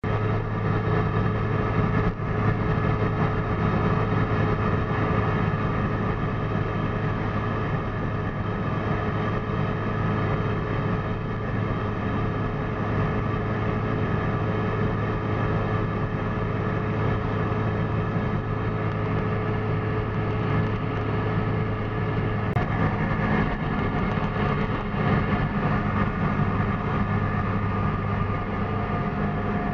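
Goggomobil's small two-stroke twin engine running steadily while the car cruises along a country road, with wind and road noise; the engine note shifts a little about three quarters of the way through.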